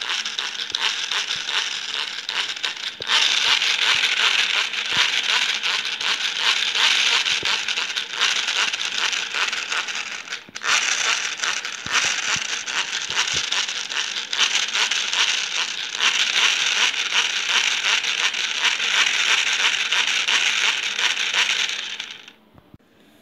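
Power-free hand blender worked by its press lever, its gear mechanism whirring with a fast rattle as the stainless steel whisk spins in the air. The whirring drops out briefly about ten seconds in and stops near the end.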